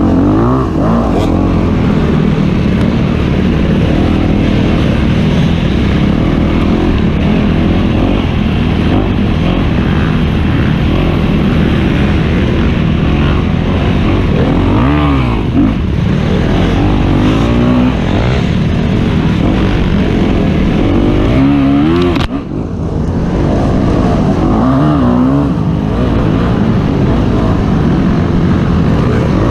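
Dirt bike engine running hard under load, revving up and falling back again and again as the rider works the throttle, with a brief drop when the throttle closes about two-thirds of the way through. Heard close up from on the bike.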